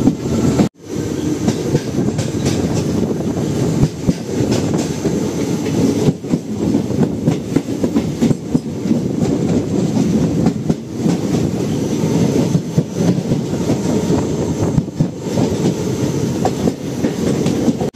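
Passenger train running, a steady rumble with the wheels clattering over the rail joints. The sound drops out briefly about a second in.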